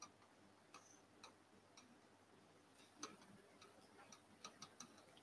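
Near silence with faint, irregular ticks: a pen tapping and stroking on an interactive display as lines and letters are written.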